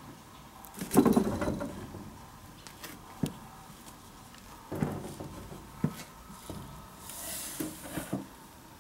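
A cat shifting at a wooden window sill. A few light knocks and clicks and a rustle of torn shoji paper are heard, with the loudest thump about a second in.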